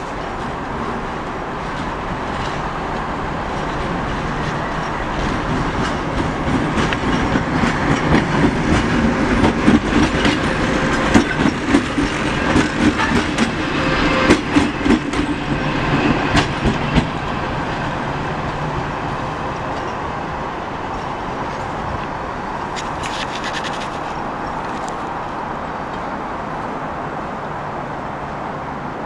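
Two-section 2TE25Km diesel locomotive passing close by: a steady diesel engine drone grows louder as it approaches. Its wheels clack over rail joints as it goes past, and the sound then fades back to a steadier drone as it moves away.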